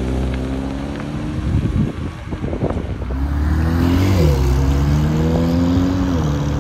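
A Porsche 911 GT3's flat-six running at low revs as the car rolls off. Then a Porsche 911 Turbo S's twin-turbo flat-six pulls away, its revs climbing and then dropping sharply twice as it shifts up.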